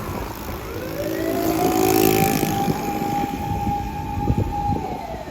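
Tokyo Fire Department fire vehicle's siren wailing: one slow rise to a held high tone lasting about two seconds, then falling again near the end, over the low rumble of the truck's engine.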